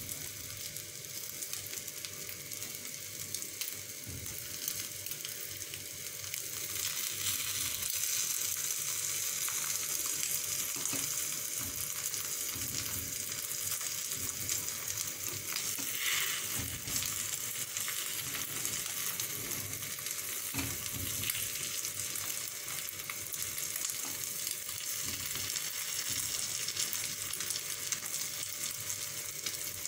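Egg-omelette batter frying in oil in the cups of a paniyaram pan: a steady sizzle, with occasional knocks and scrapes as a wooden stick turns the egg balls over.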